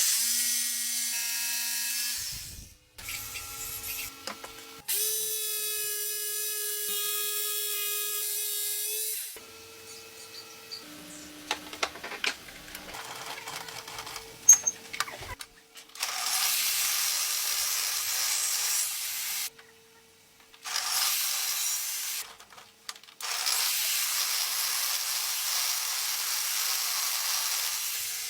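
Power tools at work in a run of short cuts. Electric motors whine at a steady pitch in the first half, then come longer stretches of steady hissing, rasping noise, with a sharp click about fourteen seconds in.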